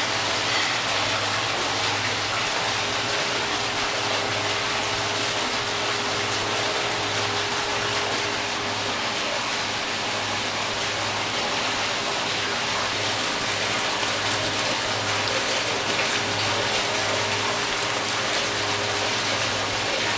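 Steady rush of running water, with a low machine hum pulsing regularly about once a second and a faint steady tone beneath it.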